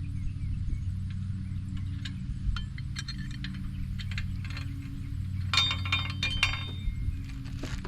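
Metal tools clinking and rattling as a socket or wrench is handled and tried for fit: scattered light clicks, then a bright, ringing clatter of metal on metal for about a second and a half near the end.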